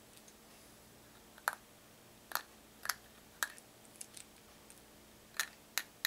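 .32-caliber lead buckshot pellets dropped one at a time into a plastic shotshell hull, each landing with a sharp click, about eight clicks at uneven intervals.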